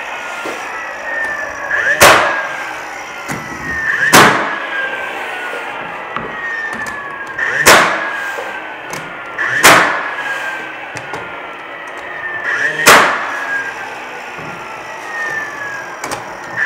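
Cordless 18-gauge brad nailer firing 5/8-inch brads into panel molding, five sharp shots two to three seconds apart. Each shot is followed by a falling whine from the nailer's motor winding down.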